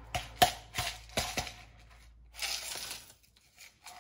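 Ice cubes clinking and knocking against a glass jar and a plastic measuring jug: a handful of sharp clicks in the first second and a half, with short rustling noises after.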